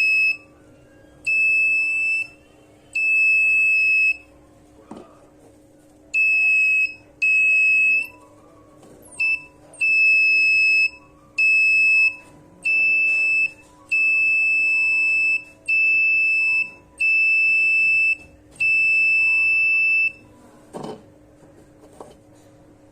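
Buzzer of a homemade light-triggered security alarm sounding a steady high-pitched tone in about a dozen on-off beeps of roughly a second each, with uneven gaps, until it stops about twenty seconds in. A couple of knocks follow near the end.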